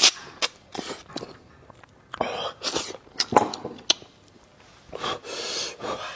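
Close-miked mouth sounds of a person eating spicy braised ribs: irregular chewing, smacking and biting noises, with two longer breathy stretches, about two seconds in and again around five seconds.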